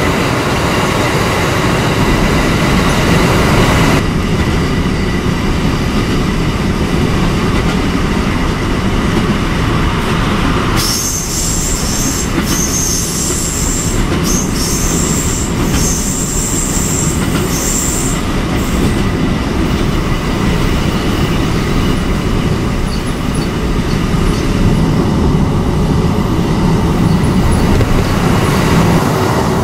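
JR 285 series electric sleeper train running at speed, its wheels rumbling and clattering on the rails, with a high-pitched squeal for several seconds midway. It is heard from a car driving alongside on the parallel road, mixed with the car's road noise.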